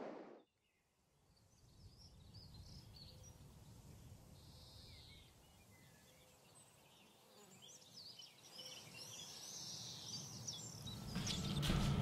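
Faint bird chirps over a quiet, low background hum. Near the end a low rumble swells up.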